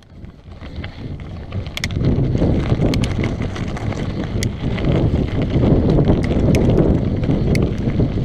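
Wind rushing over a GoPro microphone and mountain bike tyres rolling over loose gravel on a fast descent, swelling in over the first two seconds, with frequent sharp clicks and rattles from stones and the bike's chain and frame.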